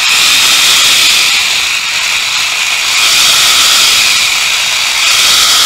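Ryobi BRJ-120 14.4 V cordless reciprocating saw running steadily at full speed with no load, its motor and blade drive making a loud, high, even whir.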